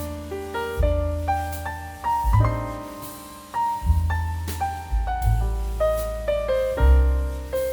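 Background piano music: a stepping melody over low bass notes struck about every second and a half.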